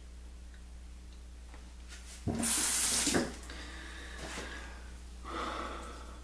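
A sink tap runs hard for about a second, starting a little after two seconds in, followed by softer splashing and a second short gush of water near the end.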